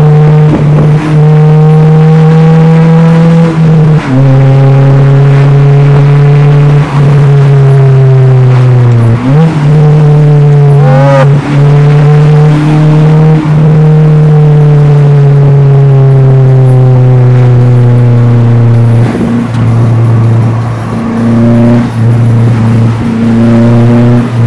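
Pickup truck's engine and exhaust droning loudly inside the cab while cruising. The pitch slides slowly with engine speed and shifts abruptly a few times as it changes gear.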